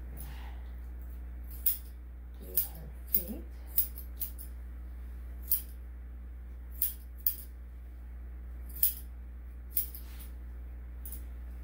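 Grooming scissors snipping through dog hair: about ten short, sharp snips at an uneven pace, over a steady low hum.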